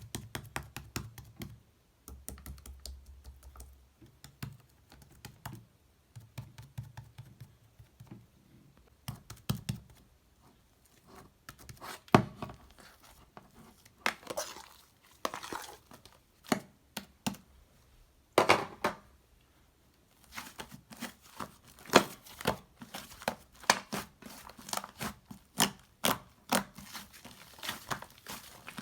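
Slime being squeezed, stretched and pressed by hand: irregular sharp pops and crackles, with a few longer squelches along the way.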